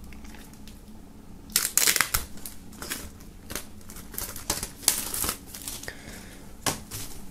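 Plastic shrink-wrap film on a CD sleeve crinkling and tearing as it is peeled off by hand: a dense burst about one and a half seconds in, then scattered crackles.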